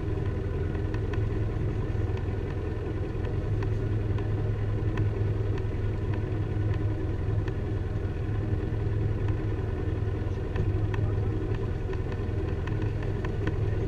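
Motorboat's engine running steadily at low speed, a low, even hum with a few faint ticks over it.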